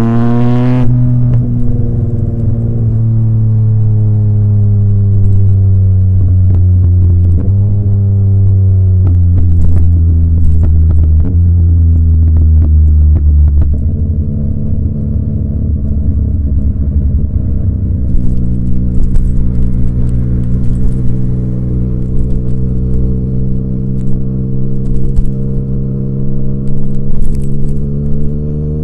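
Yamaha MT-09 three-cylinder engine through an SC Project aftermarket exhaust, heard from the rider's seat. The revs drop about a second in, then the engine pulls on through a couple of shifts. From about halfway it settles into a lower, steadier drone with sporadic crackles and clicks, and the revs climb again near the end.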